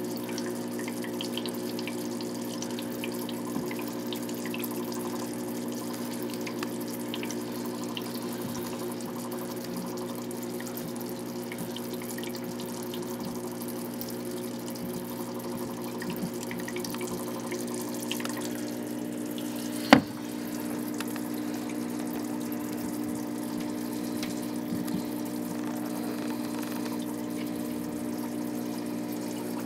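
Aquarium equipment running: a steady hum with water trickling, and one sharp click about two-thirds of the way through.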